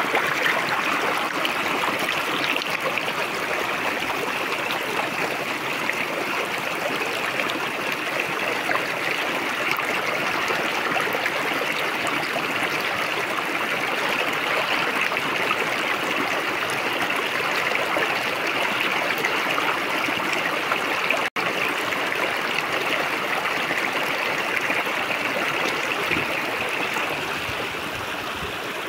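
River water rushing steadily, with a momentary dropout about two-thirds of the way through.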